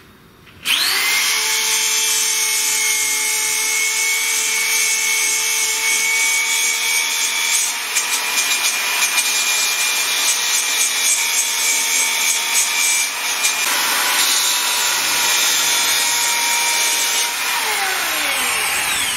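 Electric drill spinning a rotary abrasive pad against the edges of a metal plate, deburring its rough-cut, razor-sharp edges. The drill winds up with a rising whine about a second in, then runs with a steady whine over scratchy rubbing, and winds down with a falling whine near the end.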